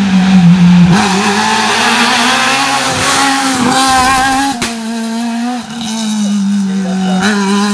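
Renault Clio rally car's engine running hard at high revs as it drives a tarmac stage. A single sharp crack comes about halfway through.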